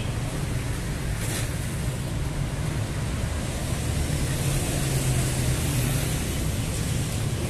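Street traffic noise: a steady low rumble and wash of cars running on the road alongside, with a brief high noise about a second in.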